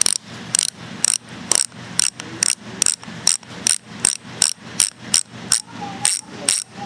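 Weapon Storm bicycle rear hub's freehub clicking as it is turned, the pawls ratcheting in separate sharp clicks, about three a second. It is not very loud.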